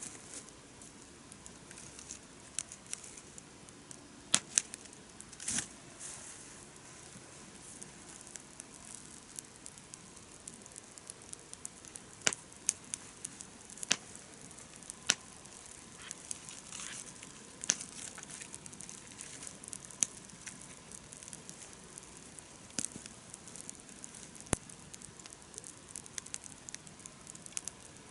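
Wood campfire burning well, crackling with irregular sharp pops over a soft steady hiss.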